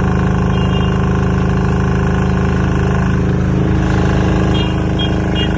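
Compact generator set's engine running at a steady speed, just after being started.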